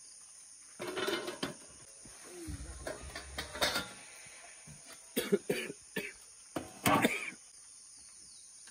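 A person coughing in several short bouts, with quiet gaps between them.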